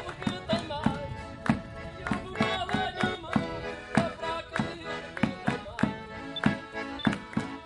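A live traditional folk dance tune: an accordion playing over a steady beat from a bass drum struck about twice a second, with people clapping along.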